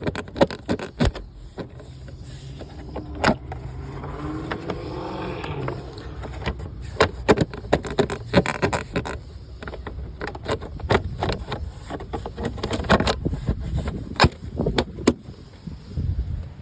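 Car engine running rough with irregular sharp pops and knocks over a low rumble: the uneven beat of a misfiring cylinder.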